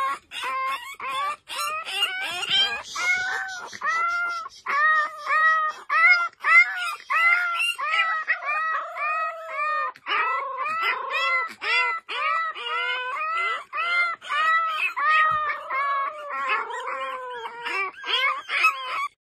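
French bulldog puppies yapping: a continuous series of short, high-pitched yaps, about two a second, each rising and falling in pitch.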